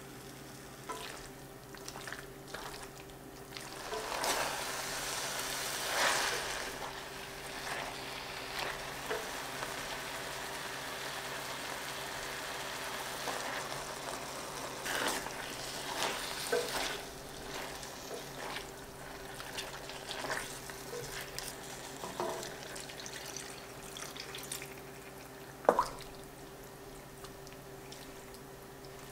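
Diced chicken and red onion sizzling in a stainless steel sauté pan, stirred and scraped with a wooden spatula, with a sauce poured in partway through. The sizzling is loudest in the first half, and a sharp clack comes near the end. A steady low hum runs underneath.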